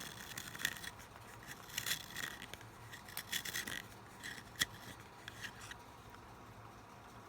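Blackwing Long Point hand sharpener's blade shaving the wood of a #2 Ticonderoga pencil: irregular dry scraping strokes with small clicks as the pencil is turned, stopping about six seconds in.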